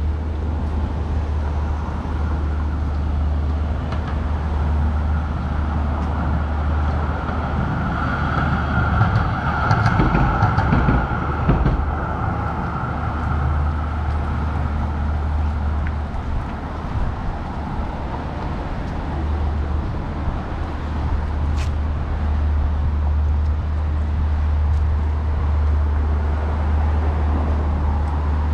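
Road traffic with a steady low rumble; a vehicle passes, loudest about ten seconds in.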